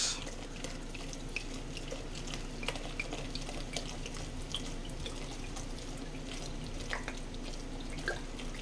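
Sweet white wine pouring from a glass bottle into a pot of snow crab legs and liquid: a steady splashing pour with scattered small drips and ticks.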